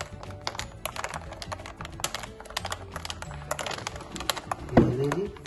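Spoon stirring ice in a glass of watermelon mojito, with rapid, irregular clinks of ice and spoon against the glass. A brief voice-like sound near the end is the loudest moment.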